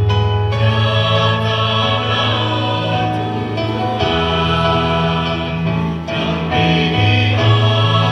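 Mixed choir of men's and women's voices singing together in parts, holding chords that change every second or two.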